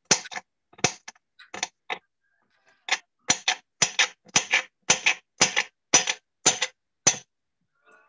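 Kitchen knife chopping on a cutting board: a string of sharp chops, a few scattered at first, then a steady run of about three a second from about three seconds in.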